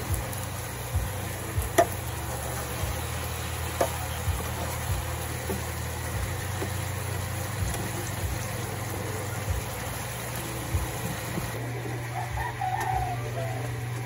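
Metal spoon stirring chicken adobo simmering in a non-stick frying pan, with occasional light knocks of the spoon against the pan over a steady low hum.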